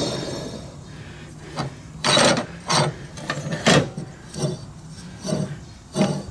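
John Deere LA145 mower-deck spindle pulley being turned by hand, giving a string of short, rough grinding rubs about once a second from about a second and a half in. The spindle bearing is worn and noisy.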